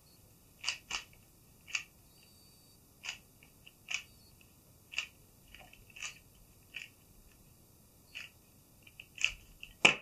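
Meilong speed cube having its layers turned by hand: separate short plastic clicks, roughly one a second and unevenly spaced. A sharper knock just before the end as the cube is set down on the wooden table.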